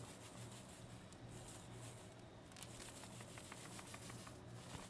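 Near silence: faint room tone with a low steady hum and a few soft ticks.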